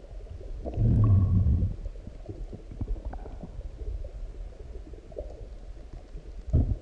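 A human stomach growling after a large meal. A deep growl lasts about a second near the start, then quieter gurgles and small pops follow, and a short growl comes just before the end.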